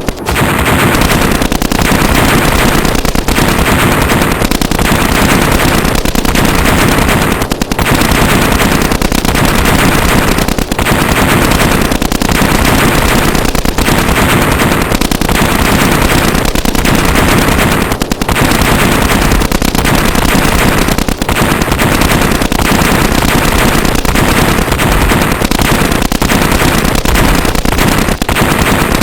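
Sustained, loud machine-gun fire, dense and continuous, broken only by a few brief gaps.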